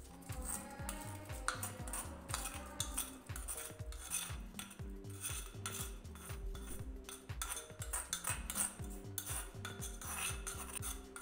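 A metal spoon scraping and clinking repeatedly against a terracotta bowl as dry red chili flakes are scraped out into a plastic blender jug, over background music.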